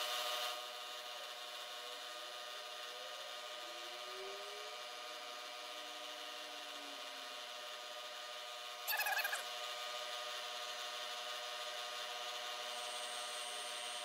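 Milling machine spindle running steadily with the end mill turning; about nine seconds in, a short rasp as the end mill starts side milling the metal round stock, throwing chips.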